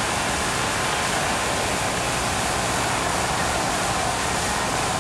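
Boxing arena crowd noise: a steady, even roar mixed with the hiss of an old broadcast recording, with no single shout or punch standing out.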